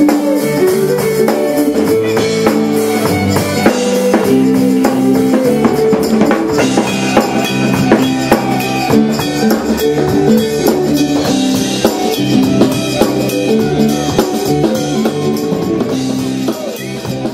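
Live band playing an upbeat song, with fiddle, keyboard and a steady drum-kit beat. The music fades out near the end.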